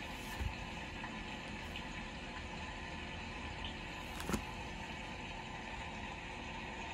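Steady background hiss with two brief soft knocks, about half a second in and just past four seconds, as the glossy pages of a picture book are handled and turned.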